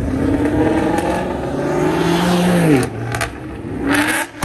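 Car engine revving hard as the car accelerates away: the pitch climbs for a few seconds, drops sharply at a gear change, then climbs again in the next gear. A couple of sharp cracks come just after the shift.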